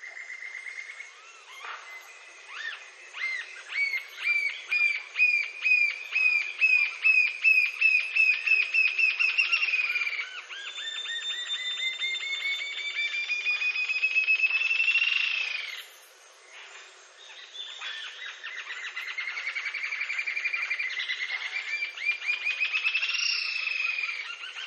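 Green-tailed jacamar singing: a series of high, up-slurred whistled notes that speed up into a long trill rising in pitch. The song breaks off about sixteen seconds in, then starts again and accelerates into another rising trill.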